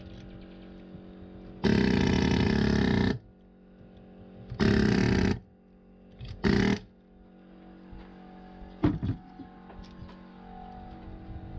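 Pneumatic air hammer with a chisel bit firing in three bursts, the first about a second and a half long, the last brief, shearing the copper windings off an electric motor's steel stator. A few sharp metal knocks follow.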